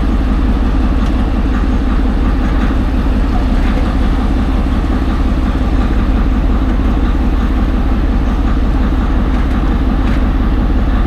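Car traffic pulling away and driving up the road, a steady low rumble of engines and tyres.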